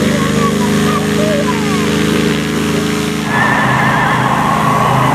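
Paramotor trike's propeller engine running at a steady pitch. A little over three seconds in, the sound cuts abruptly to a louder, noisier mix with a wavering high tone over a pulsing low beat.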